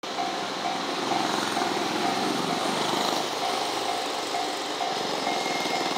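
A railway warning bell ringing about twice a second, a single repeated tone, over the steady rumble of a slow-moving train in the yard.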